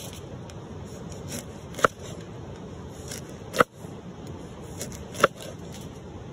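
Cleaver slicing a lemon on a wooden cutting board: three sharp knocks, roughly a second and a half apart, as the blade cuts through and strikes the board.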